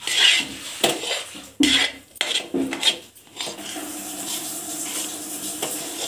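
Spatula scraping and stirring thick, cooked milk-powder peda dough against a metal kadhai. There are several separate scrapes in the first three seconds, then softer, steadier stirring. The dough has cooked down to the stage where it pulls away from the pan.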